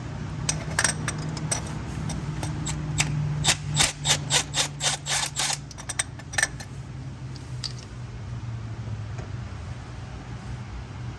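Ratchet wrench clicking in quick strokes while loosening and removing a spark plug, over a steady low hum.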